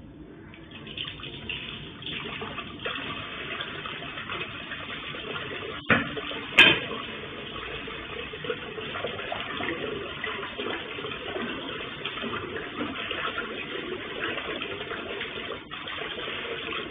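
Water running steadily from a tap, with two sharp knocks about six seconds in.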